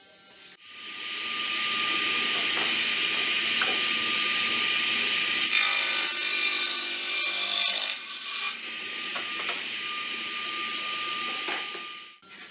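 Table saw motor starting and coming up to speed. The blade cuts along a mahogany board for about three seconds in the middle, squaring off one edge. The saw then runs free until it is switched off near the end.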